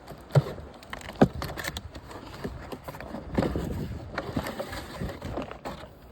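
Engine rebuild kit parts and their packaging being handled: irregular rustling and clatter, with two sharp knocks about half a second and a second in.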